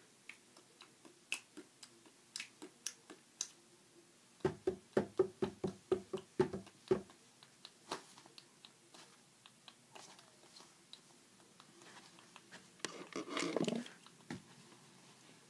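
Handling noises from a person moving close to the microphone: scattered clicks, a quick run of about a dozen knocks a few seconds in, and a short rustle near the end.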